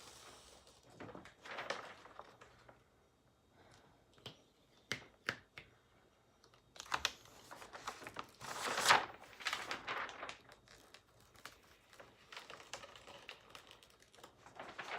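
Paper wrapping crinkling and rustling as it is pulled off, with scattered small clicks and taps; the loudest rustle comes about nine seconds in.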